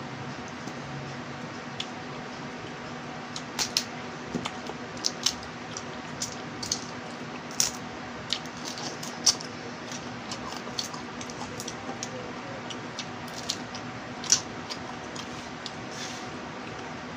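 Eating boiled small crabs and rice by hand: irregular sharp clicks and crackles of crab shell being picked apart, with wet mouth and chewing sounds, starting a few seconds in, over a steady faint hiss and hum.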